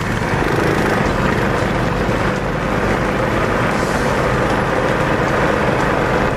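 Mini bike engine running steadily while riding along the road.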